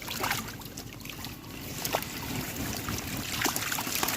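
Water trickling and sloshing around a small boat, with scattered light knocks and clicks, getting louder about a third of the way in.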